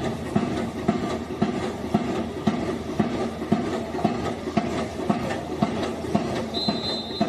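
Drums beating a steady rhythm, about two beats a second. A short, high referee's whistle sounds near the end, signalling the free kick.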